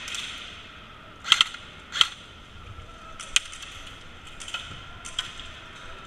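Airsoft guns firing single shots: a quick double crack about a second in, then sharp single cracks near two seconds and three seconds, and fainter ones later, over a steady high hiss.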